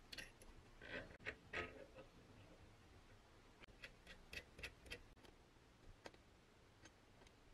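Faint, scattered metallic clicks and light taps as a long steel through-bolt is slid through the lugs of a bench grinder's cast motor housing, in two small clusters.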